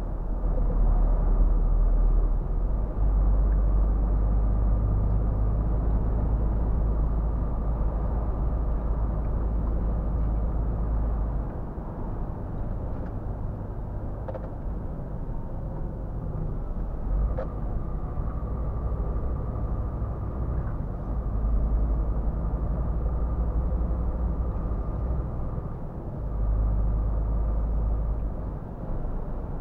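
Cab interior of a Scania R450 truck on the move: its 13-litre six-cylinder diesel and road noise make a continuous deep rumble with a faint steady whine above it. The rumble eases about a third of the way in and swells again twice in the last third.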